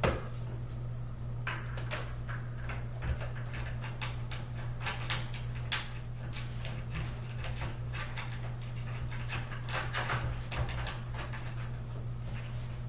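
Irregular short clicks and clinks of bolts and metal bed-frame parts being handled and fitted, over a steady low hum.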